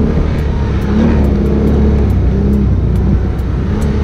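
Can-Am Outlander ATV's V-twin engine running under throttle, its engine note rising and falling a little.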